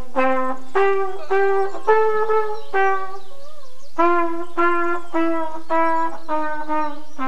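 Flugelhorn playing a slow melody of about a dozen separate notes, with a short break about three seconds in and the tune stepping lower toward the end.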